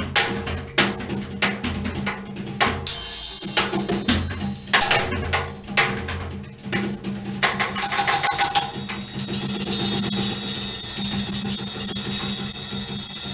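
Acoustic drum kit played in a frantic, free-form barrage: fast, irregular hits on snare, toms and bass drum punctuated by cymbal crashes. From about nine seconds in, the cymbals are struck continuously, so a steady wash of cymbal sound covers everything.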